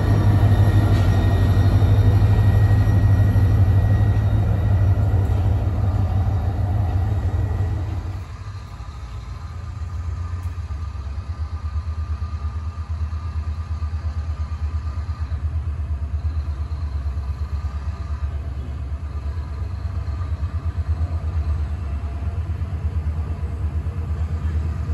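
Diesel locomotive engine running, a loud steady low drone that drops off sharply about eight seconds in and carries on as a fainter low rumble.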